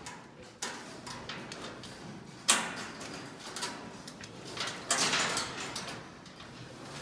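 A sprayer wand hissing in several spurts as antiparasitic solution is sprayed onto a bull's legs and hindquarters. One spurt starts suddenly about two and a half seconds in, and the longest comes about five seconds in.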